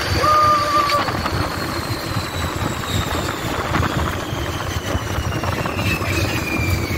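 Test Track ride vehicle running at speed on its outdoor loop, with a steady rush of wind and rumble against the open car. A high whine falls slowly in pitch throughout as the car eases off. A short held tone sounds about half a second in.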